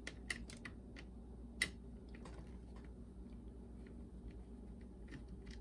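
Faint, irregular small clicks and ticks of a screwdriver working a small screw out of the boombox's circuit board, one louder tick about a second and a half in, over a low steady hum.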